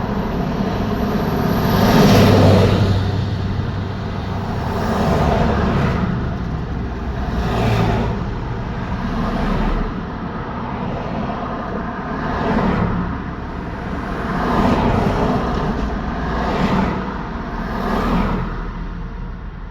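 Road traffic: vehicles passing one after another, each one's tyre and engine noise swelling and fading away, about eight passes in all. The loudest pass is about two seconds in, with a low hum under it, and the sound thins out near the end.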